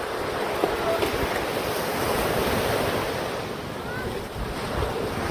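Ocean waves washing on the shore, a steady surf noise, with wind buffeting the microphone.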